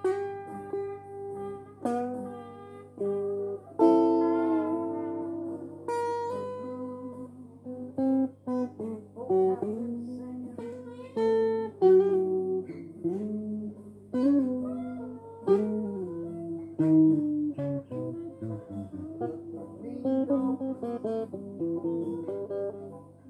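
Electric guitar played solo: picked single-note lead lines with string bends, each note ringing and decaying, over a steady low hum.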